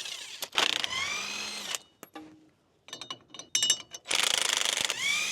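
Power tool driving out the wheel hub's mounting bolts in bursts of about a second, the pitch rising near the end of each burst. Sharp metallic clicks come between the second and third bursts.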